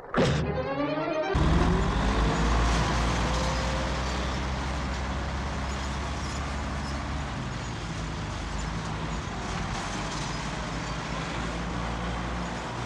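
Tractor engine running steadily while pulling a plough through the field; the engine noise starts abruptly about a second in, after a short falling pitched sound.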